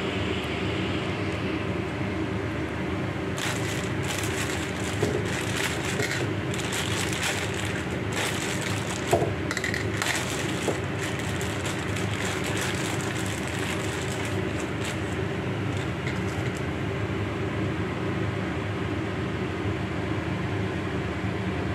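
A steady machine hum, with a stretch of crackling and rustling and a few sharp clicks from about three to fifteen seconds in.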